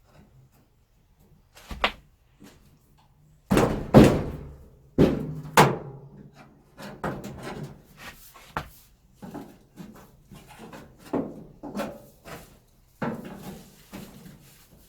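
A flathead screwdriver prying a clothes dryer's sheet-metal top panel off its spring clips: a run of sharp pops, clunks and metal knocks, loudest about four and five seconds in, as the clips release.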